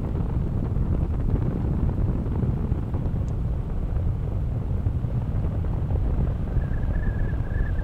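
Wind buffeting the microphone in paraglider flight: a steady, low rumbling rush of air. Near the end a faint, steady high tone comes in for about a second.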